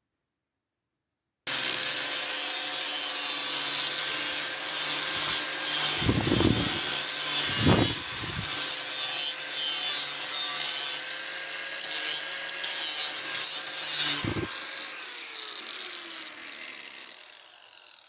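Angle grinder starting a second or so in and grinding down a fiberglass panel flange: a steady motor whine under a loud gritty hiss, rising and dipping as the disc bites. Near the end the grinder is switched off and winds down, its whine falling in pitch and fading.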